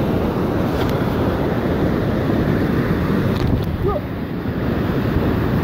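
Small waterfall pouring into a rocky mountain stream: a loud, steady rush of white water.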